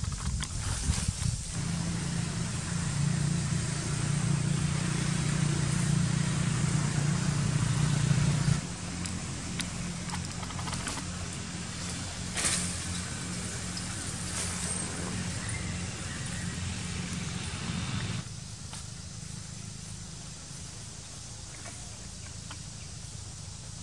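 A motor running steadily, a low hum that is loudest for the first third and then drops in level twice, over a steady outdoor hiss.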